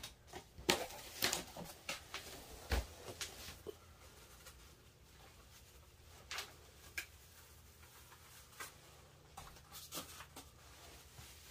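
Plastic bubble wrap crinkling and rustling in short bursts as it is handled around a guitar. It is busiest in the first few seconds, then comes in scattered crackles.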